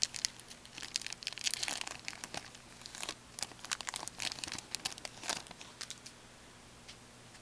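Trading-card pack wrapper crinkling and hockey cards being handled, a dense run of sharp crackles and ticks that stops about six seconds in.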